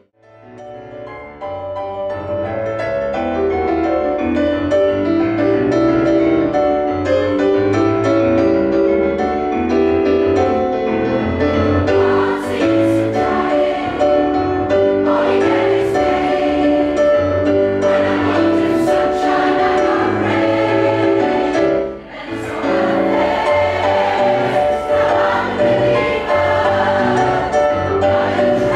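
Mixed choir of men and women singing a song with keyboard accompaniment, fading in over the first couple of seconds. The singing breaks off briefly about 22 seconds in, then goes on.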